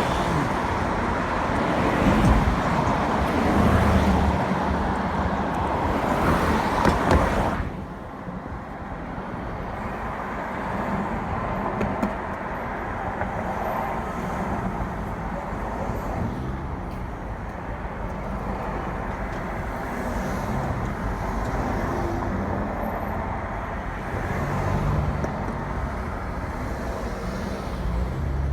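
Car and road traffic noise, heard from a car on the road: a loud, even rush for about the first seven seconds that drops off suddenly to a quieter, steady rumble.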